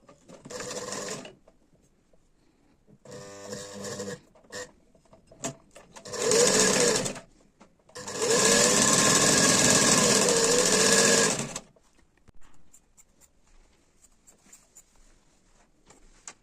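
Sewing machine running in four separate bursts, the last and loudest lasting about three and a half seconds, with small clicks in the pauses between.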